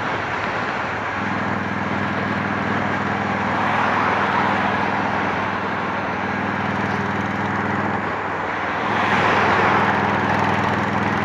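Honda Shadow 750's V-twin running at a steady cruise through a Torbal 3-inch sport exhaust, with road and wind rush over it. The engine note breaks off briefly about a second in and again around eight seconds, and the wind rush swells after nine seconds.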